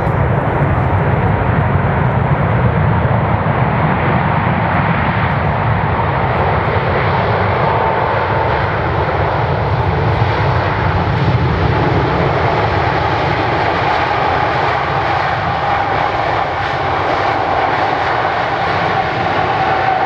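Jet engines of a four-engined Emirates Airbus A380 running: a loud, steady rushing noise with a faint whining tone that slowly falls in pitch.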